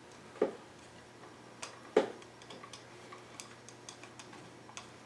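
Screwdriver and rifle pistol-grip parts being handled: scattered light ticks, with two sharper knocks about half a second and two seconds in, the second the loudest.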